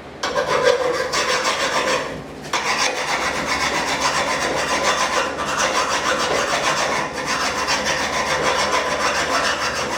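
Hand file rasping back and forth over the ground-down weld spots on a Coleman RB200 mini bike's metal frame, smoothing it for a final finish after a 40-grit flap disc. The filing runs steadily, with a short pause about two seconds in.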